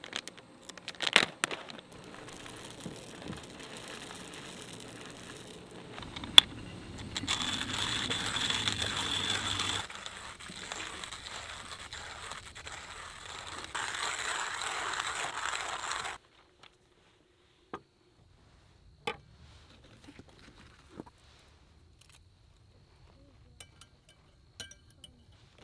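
Coffee beans being ground in a hand-cranked burr grinder: a steady gritty grinding that cuts off suddenly about sixteen seconds in. Before it, a paper coffee bag crinkles briefly. After it come a few light clicks of a folding stainless-steel coffee dripper being opened.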